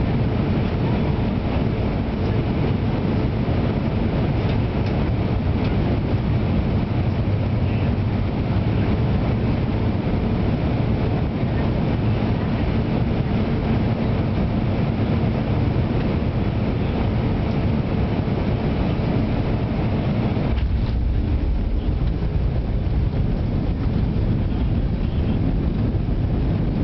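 Airbus A319 cabin noise on landing: the steady, loud noise of the engines and rushing air. About three-quarters of the way through it changes abruptly to a deeper rumble, as the aircraft rolls on the runway.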